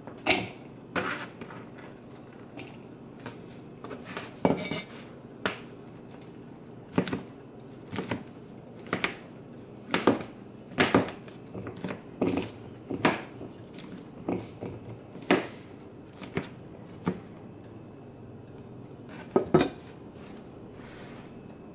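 Chef's knife slicing mushrooms on a plastic cutting board: the blade knocks on the board irregularly, about once a second and sometimes twice in quick succession.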